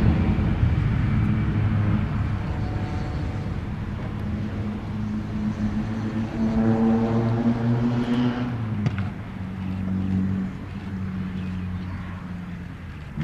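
Airbus A319 jet climbing away after takeoff, its broad engine rumble loudest at first and slowly fading. Around the middle, a nearer engine hum swells for about two seconds and then stops abruptly.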